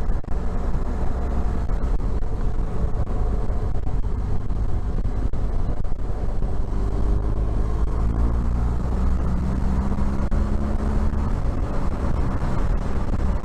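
BMW R1200 GS Adventure's boxer twin engine running under way, mixed with wind and road noise. The engine note climbs in pitch through the second half as the bike picks up speed, then falls back near the end.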